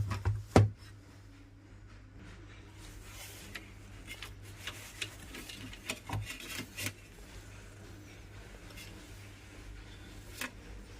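Rubbing and scraping with scattered light clicks over a steady low hum, with a few loud pops in the first second.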